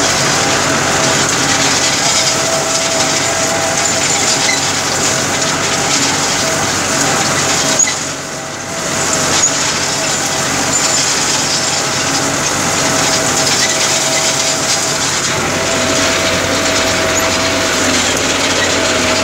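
Tractor engine running steadily while pulling a rotary hay rake raking cut alfalfa, with the rake working in the mix and a steady whine running through. The noise dips briefly about eight seconds in, then carries on as before.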